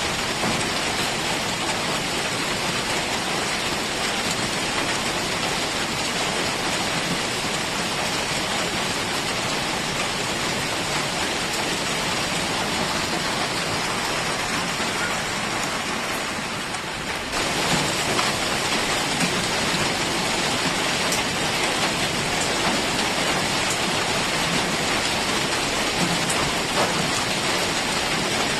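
Heavy rain falling in a steady, dense hiss. About sixteen seconds in it softens slightly, then comes back abruptly a second later.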